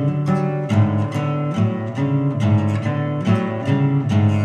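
Solo classical guitar playing a rhythmic passage of chords, struck at a steady pulse of about two to three strokes a second.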